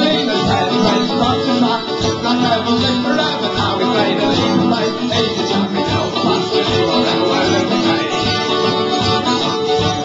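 Live acoustic folk band playing: an acoustic guitar and a mandolin strumming a steady tune together.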